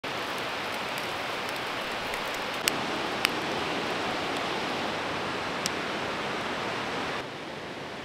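River water rushing in a steady, even hiss, with a few sharp clicks and ticks, and a little quieter from about seven seconds in.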